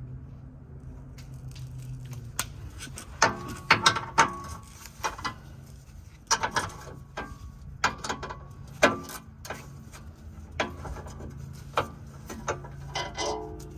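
Hand tools on a car's underbody: ratchet clicks and sharp metallic clanks at uneven intervals, some ringing briefly, as the bolts holding the under-engine skid plate are worked loose.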